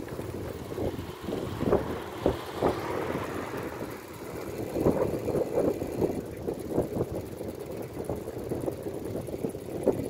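Wind buffeting the microphone of a phone carried on a moving bicycle, with the uneven rumble of bicycle and trailer wheels rolling on asphalt.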